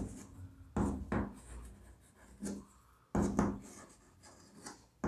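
Chalk writing on a blackboard: a series of short scratching, tapping strokes with brief pauses between them as characters are drawn.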